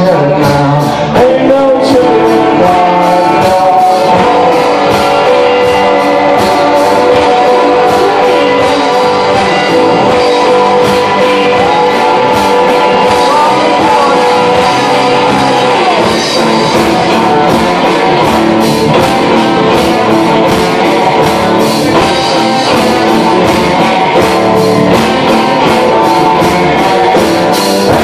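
Live rock band playing with drum kit and acoustic guitar keeping a steady beat, and a singer's voice over the top.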